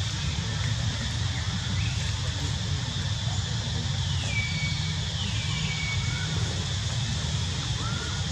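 Steady low outdoor rumble, with a few faint high calls over it: two short rising chirps early, then two falling whistle-like notes that each level off and hold briefly in the middle, and a short rising call near the end.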